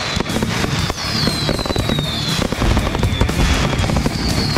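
Consumer fireworks crackling and bursting densely, mixed with background intro music. A few high whistle-like tones fall slowly in pitch.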